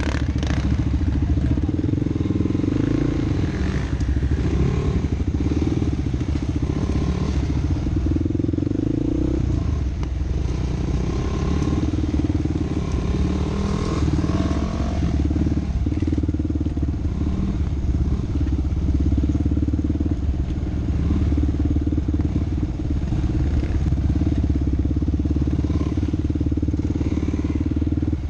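An off-road vehicle's engine running continuously under way, its revs rising and falling.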